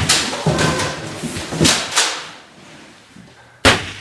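A series of sharp knocks and bangs: several in the first two seconds, then a quieter stretch and one loud bang near the end.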